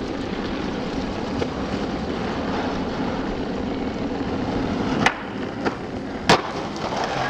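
Skateboard wheels rolling steadily over concrete. About five seconds in comes the sharp pop of the tail, and a little over a second later a louder hit as the board comes down onto an iron stair handrail.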